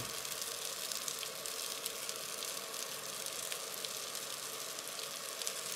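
Rice frying in oil in a nonstick frying pan: a steady sizzle with a few faint crackles.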